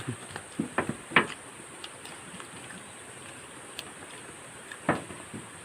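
A few brief, quiet mouth sounds from people eating, two close together about a second in and one near the end, over a faint steady hiss.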